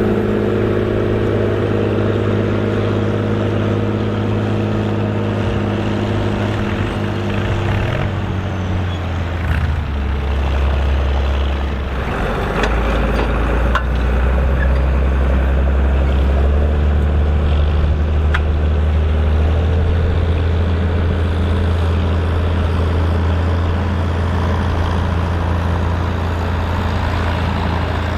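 Volvo BM tractor diesel engine running under load while ploughing; about nine seconds in its note drops, then it runs steady and deeper.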